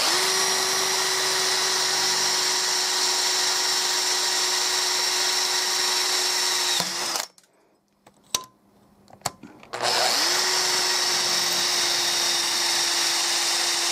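Electric drill boring a small tapping-size hole for an M5 thread into an aluminium leg tube and bar. The drill runs at a steady whine, winds down and stops about halfway, then after a couple of seconds with a few light clicks spins up again and runs on.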